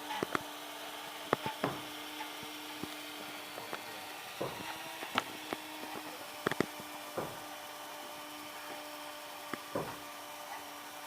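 Scattered light knocks and clicks at irregular times, over a steady low hum.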